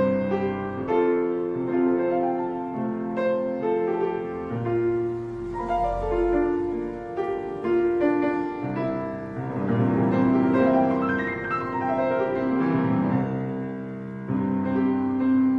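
Background piano music, a slow melody with held notes.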